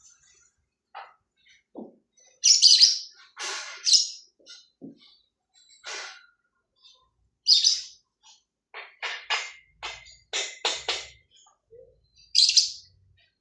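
Bird chirping: short, loud, high calls a few seconds apart, with a quick run of about six sharp calls near the middle.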